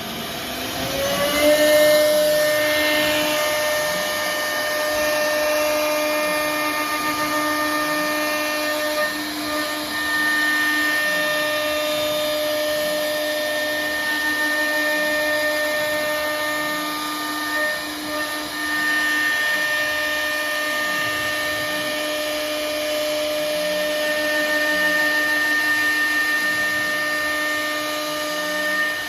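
CNC router spindle spinning up over the first second or so, then running at a steady whine while milling, with a grinding cutting noise under it and brief dips in the tone now and then.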